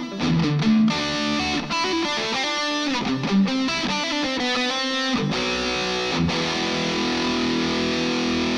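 Electric guitar played through the Flamma FG200 multi-effects pedal's factory preset P1D: a quick run of single notes, then a chord struck about five seconds in and left ringing.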